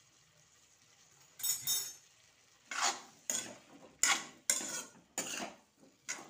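Metal spatula stirring and scraping diced potatoes and tomatoes against the side of a metal kadhai. A double scrape comes about a second and a half in, then a run of sharp scrapes about two a second.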